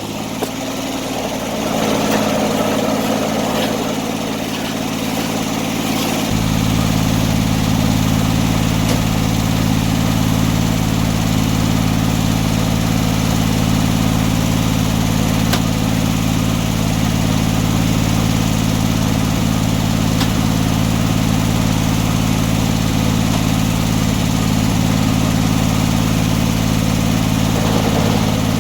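An engine running steadily. About six seconds in, its sound deepens and grows a little louder, then holds steady.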